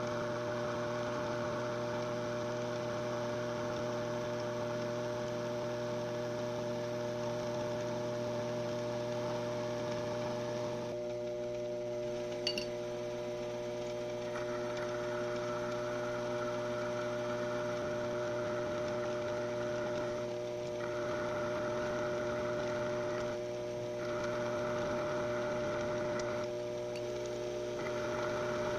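Benchtop machine-tool motor (mini lathe or mini mill) running with a steady hum. In the second half a band of hiss comes and goes several times, with a short click about midway.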